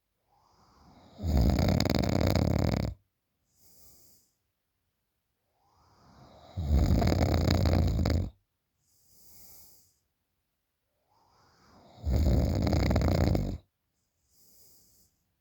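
A woman snoring in her sleep: three loud snores about five and a half seconds apart, each lasting about a second and a half, with a faint breath between them.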